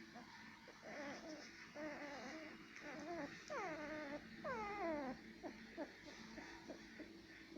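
Puppies whimpering and squealing in short, high cries, with two longer falling whines around the middle.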